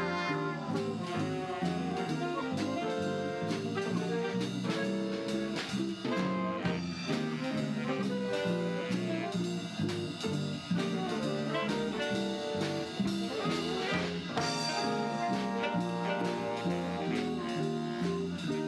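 Background music: instrumental swing jazz with brass, saxophone and drum kit, at a steady beat.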